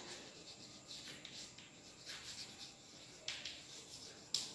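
Chalk writing on a blackboard: a series of faint, short scratches as a word is written, with a sharper stroke near the end.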